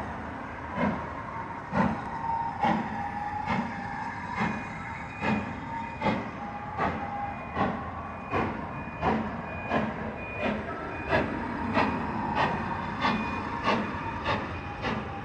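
GWR Castle class four-cylinder 4-6-0 steam locomotive 5043 moving off light engine: sharp exhaust beats from the chimney, a little under one a second at first and quickening steadily as it gathers speed. A faint steady high tone runs under the beats.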